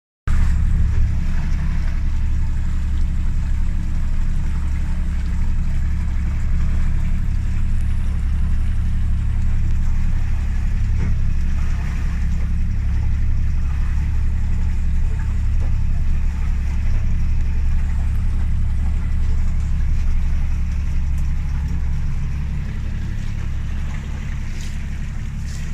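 Motorboat engine running steadily on a fishing boat under way, trolling, as a deep, even drone. It eases off slightly near the end.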